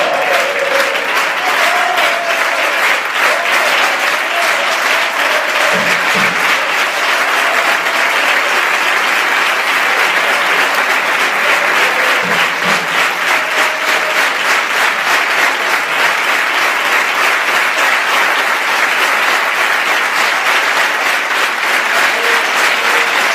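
Football crowd applauding steadily in a long ovation, a dense patter of clapping. A few deep thumps come in pairs, about six and twelve seconds in.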